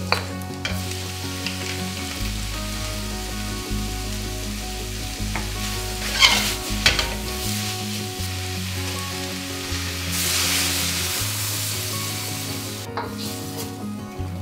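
Vegetables, seafood and noodles sizzling in a hot wok as they are stir-fried, with a wooden spatula scraping and clattering against the wok now and then. The sizzle grows louder for a few seconds about ten seconds in.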